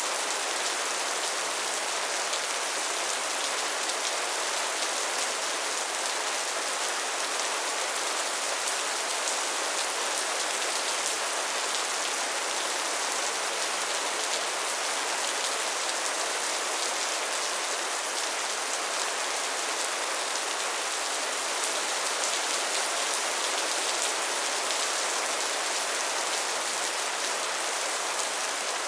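Heavy rain falling steadily on a metal roof, an even wash of drops with no break and no thunder.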